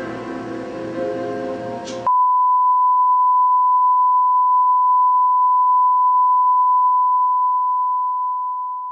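Electronic music with held chords cuts off abruptly about two seconds in. It is replaced by a loud, steady 1 kHz test tone, the reference tone that goes with TV colour bars, which fades out near the end.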